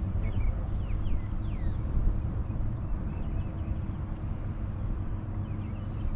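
Steady low rumble of a fishing boat's motor, with short high chirps sliding up and down in the first two seconds and again near the end.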